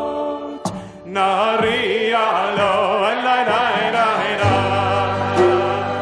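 A congregation singing a Jewish prayer melody together, many voices at once. A held chord breaks off just before a second in, and the group picks up the next phrase of the tune; a low steady note sounds underneath near the end.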